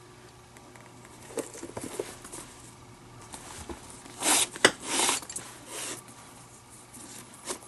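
Leather glove lace being drawn through the lacing holes of a catcher's mitt: soft leather handling at first, then a few short pulls around the middle.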